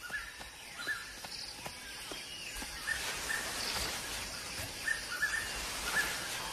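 Forest ambience: a steady hiss of background with short chirping bird calls repeated every second or so, often in pairs, and a few faint ticks.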